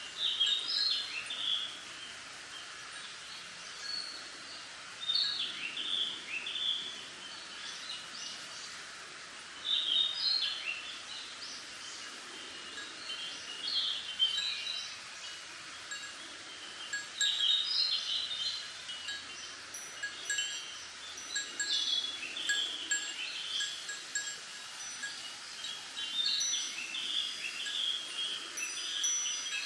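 Wind chime bells tinkling in quick clusters of notes every three to four seconds, with ringing tones held between the clusters, over a steady hiss of wind in bamboo leaves.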